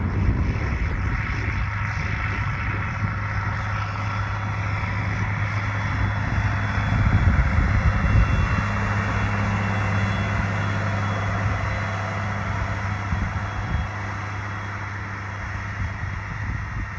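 International Harvester 5488 tractor's six-cylinder diesel engine running steadily under load while pulling a strip-till bar and fertilizer tank. It is a little louder about seven seconds in and fainter near the end.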